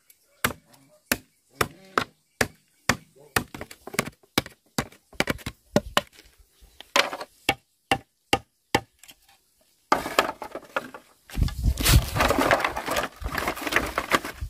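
Bamboo being chopped with a blade: sharp, separate chops about twice a second. About ten seconds in they stop and a louder, continuous jumble of noise takes over.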